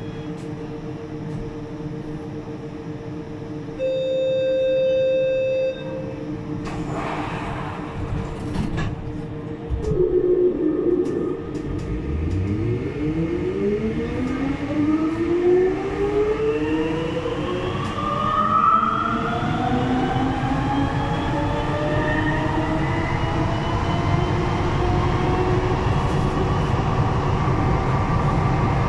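Siemens VAL 208 rubber-tyred metro train standing, then pulling away: a steady electronic tone sounds for about two seconds about four seconds in, and from about twelve seconds in the traction motors whine in several rising pitches as the train accelerates, over a low running rumble.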